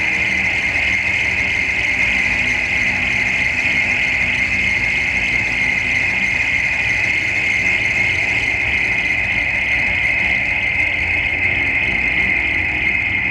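Harsh noise music played live through a PA: a dense, unbroken wall of distorted electronic noise with a shrill, piercing band running through it over a low rumble.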